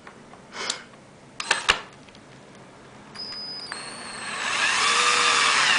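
Cordless drill driving a drywall screw through a wooden gusset into a board. A couple of sharp knocks come about a second and a half in. About three seconds in the motor starts with a high whine, then runs louder for the last two seconds, its pitch rising and then falling a little.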